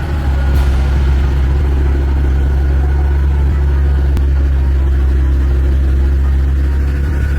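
Heavy tractor-truck engine running steadily under load as it hauls a heavy load up a steep grade: a deep, even low hum.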